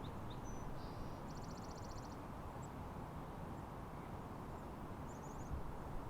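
Steady low outdoor rumble with faint small-bird calls: a few thin chirps at the start, a quick trill of about ten notes a second in, and a short flurry of notes near the end.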